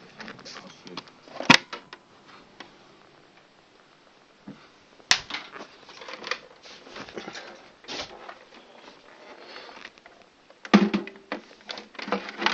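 Clicks, ticks and plastic rattles of a small radio being handled and set up. Two sharp clicks stand out, about a second and a half in and about five seconds in, and there is a louder flurry of knocks near the end.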